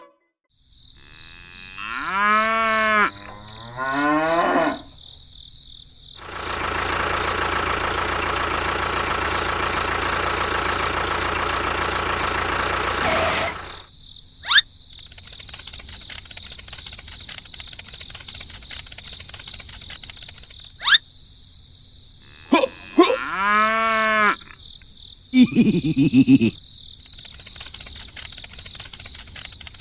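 Drawn-out animal calls, two early and two near the end, each rising and then falling in pitch. In between, a steady noisy hum lasts about seven seconds, and there are two sharp clicks.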